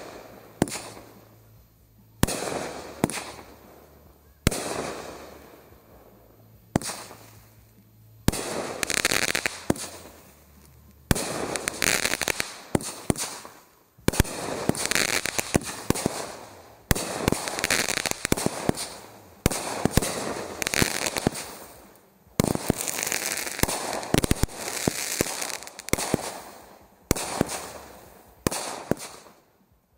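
Consumer aerial fireworks firing shot after shot, every second or two. Each shot is a sharp bang followed by a fading hiss, and from about eight seconds in the shots come faster and overlap.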